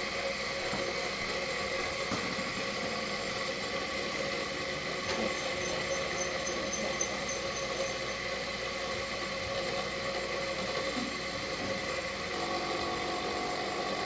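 Four fidget spinners whirring together on a wooden chair seat: a steady bearing hum made of several high, even tones over a hiss.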